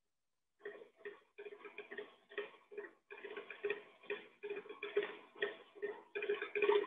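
Stand mixer beating butter in a steel bowl: a regular ticking a little over twice a second as the beater goes round the bowl, starting about half a second in.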